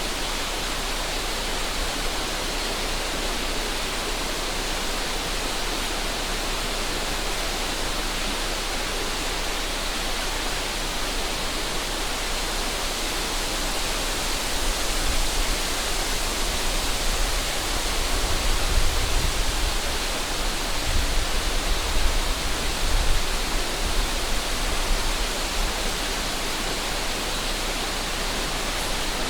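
Steady rush of river water flowing. From about halfway to three-quarters through, wind gusts buffet the microphone with a low rumble.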